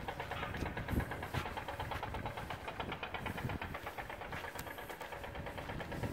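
An engine running steadily with a rapid, even pulse. A few low thumps come about a second in.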